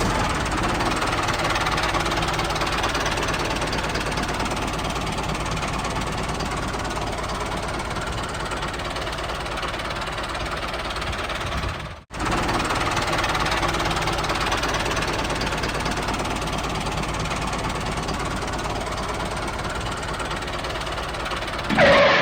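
A small engine running steadily, knocking evenly, as a miniature DIY tractor works. It cuts off abruptly about halfway and picks straight up again.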